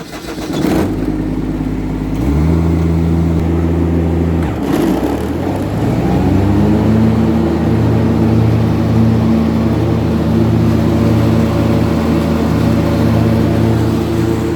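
Kubota ride-on mower engine starting and running. It picks up speed about two seconds in, dips briefly around four to five seconds, then climbs and holds a higher steady speed. This is a test run of a newly replaced mower deck pulley.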